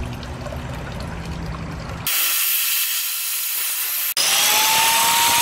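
Power-tool noise in edited segments: a rough, moderate noise, then from about two seconds in a loud tool noise with a low hum. It cuts at about four seconds to a portable table saw running with a steady motor whine, ripping a board into strips.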